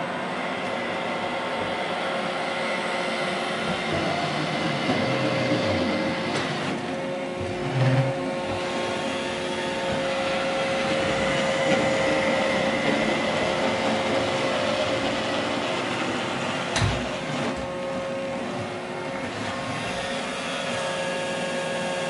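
iRobot Roomba i3 robot vacuum running, a steady motor whine over brush and suction hiss as it cleans a wooden floor along the edge of a rug. A brief low knock comes about eight seconds in and a sharp click about seventeen seconds in.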